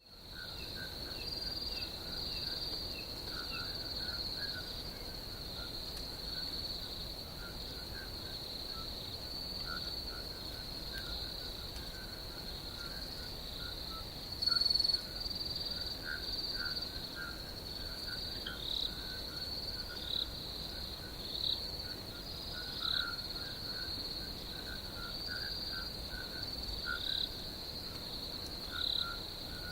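Night ambience of insects: a continuous high-pitched trilling chorus, with scattered lower chirps and calls over it and one louder call about halfway through.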